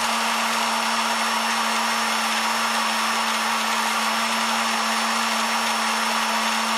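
Drill press running at a steady speed with a small abrasive grinding disc in its chuck, grinding the inner cutter of a Forstner bit to sharpen it: an even whir over a steady low hum.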